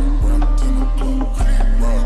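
Music: a beat with deep held bass notes that change pitch every second or so, under a melody and light high ticks.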